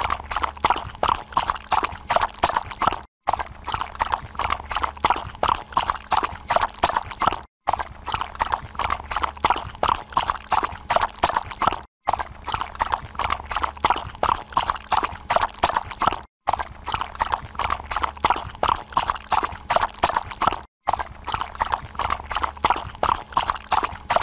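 Horse hoofbeats at a run: a rapid, steady clip-clop rhythm, broken by a brief dropout about every four seconds where the same stretch of hoofbeats loops.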